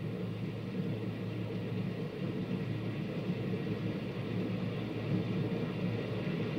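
Steady low hum and rumble with a faint hiss above it: the background noise of the recording.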